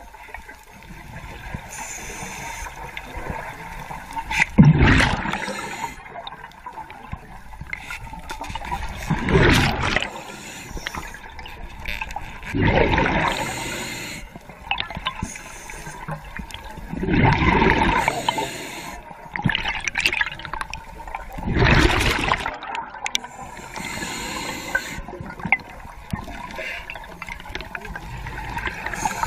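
Scuba diver breathing through a regulator underwater: five loud bursts of exhaled bubbles, about every four seconds, with a steady low hiss of water between them.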